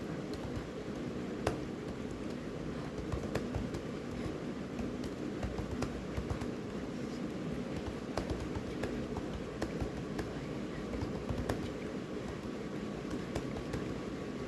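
Typing on a computer keyboard: irregular keystroke clicks over a steady low background hum.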